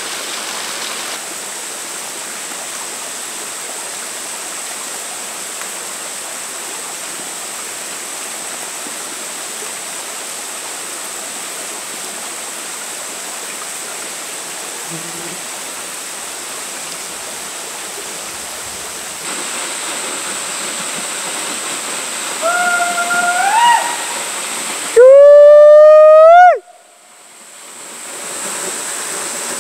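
Steady rush of a small waterfall spilling over rocks into a pool. Near the end a pitched call rises in pitch twice, the second time very loud and close, and it drops off sharply at the end.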